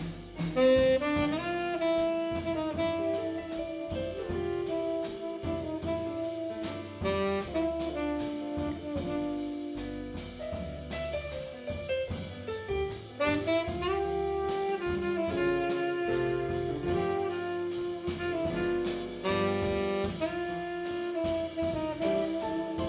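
Jazz quartet playing a ballad: a saxophone carries the melody in long held notes over keyboard chords, bass and drums, with cymbals ticking steadily on top.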